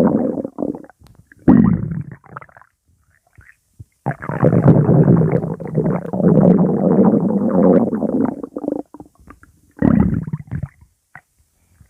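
Human stomach growling in loud, gurgling rumbles: a short bout about a second and a half in, a long one of about five seconds from around four seconds in, and another short one near the end.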